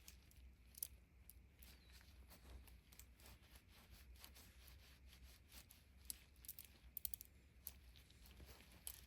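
Faint handling noises while steel ball bearings from a bicycle rear hub are wiped clean: irregular small clicks and short scratchy rubs, a few sharper clicks around seven seconds in, over a steady low hum.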